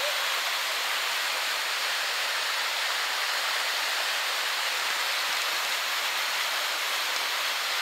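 Storm-swollen river in flood, its brown floodwater rushing over rapids in a steady, unbroken wash of turbulent water.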